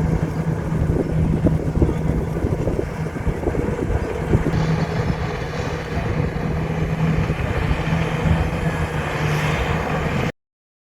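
Heavy diesel engine of construction equipment running steadily under load, with a dense rapid clatter over a held low engine tone; the sound cuts off suddenly near the end.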